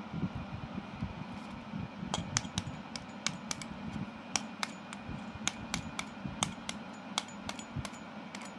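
A knife tapping the shell of a hard-boiled chicken egg held in the hand, cracking it for peeling: about twenty sharp, light taps in irregular runs, starting about two seconds in.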